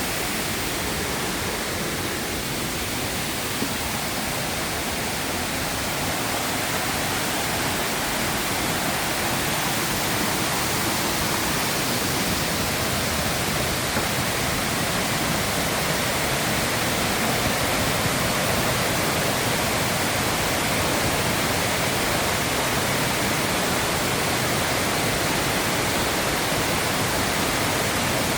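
Waterfall running: a steady, even rush of falling water that grows slightly louder over the first several seconds and then holds level.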